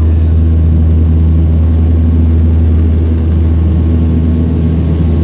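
De Havilland Canada Dash 8 turboprop engines and propellers droning steadily with a strong low hum, heard from inside the cabin as the aircraft rolls along the runway.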